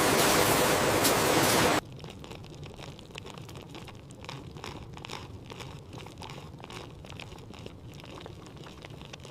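Loud steady rushing noise that cuts off suddenly under two seconds in. Quieter irregular crunching and rustling follows.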